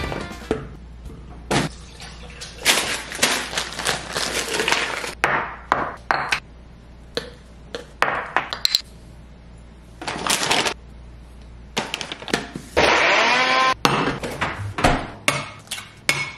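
Kitchen prep sounds: glass jars, lids and a portable blender bottle handled on a stone countertop, giving many sharp clinks and knocks, with a few seconds of steadier whirring about three seconds in.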